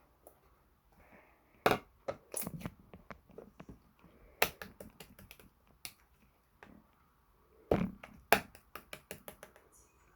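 Chocolate-jam slime being squeezed and pressed by hand, giving irregular sharp sticky clicks and pops, with quick runs of them about a third of the way in and again near the end.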